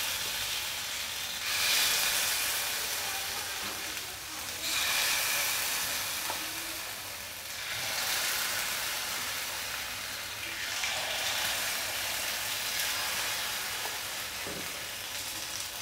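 Spoonfuls of appe batter sizzling in the hot oiled cups of an appe pan. The hiss swells louder four times, about every three seconds, as each new spoonful hits the oil, and fades slowly in between.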